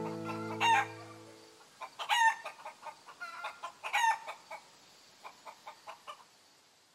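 A strummed acoustic guitar chord rings out and fades over the first second and a half. Chickens cluck in short calls, louder ones about two and four seconds in, and softer clucks until near the end.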